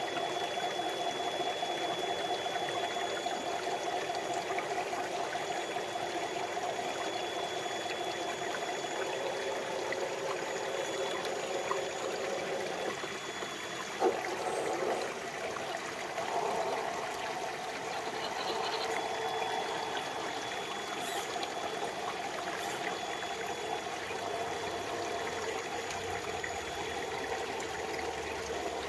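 Shallow stream trickling and burbling over rocks, a steady watery rush, with a single sharp knock about halfway through.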